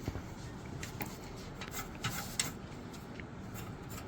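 Scattered light clicks and taps over a low steady hum, the sharpest one about two and a half seconds in.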